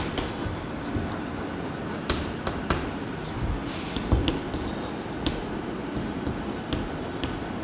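Chalk on a blackboard as words and numbers are written: irregular sharp taps and short scratches over a steady background hiss.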